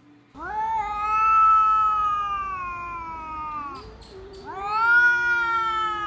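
Two domestic cats yowling at each other in a standoff: two long drawn-out wails, the first gliding slowly down and fading near four seconds in, the second rising in at about four and a half seconds, with a lower steady tone beneath them.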